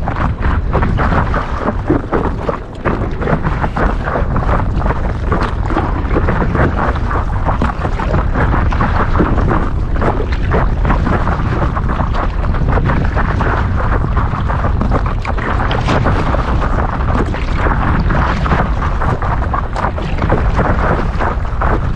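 Wind buffeting the microphone: a loud, steady low rumble with a rushing hiss above it.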